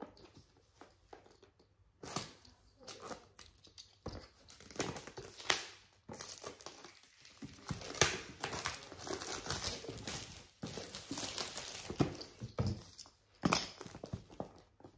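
Packaging of a DJI Avata drone box being crinkled and torn open by hand: irregular crinkling and ripping that starts about two seconds in, with a few louder rips along the way.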